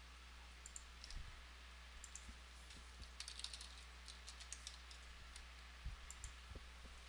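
Faint typing on a computer keyboard: scattered key clicks, with a quicker run of keystrokes about three seconds in, over a low steady hum.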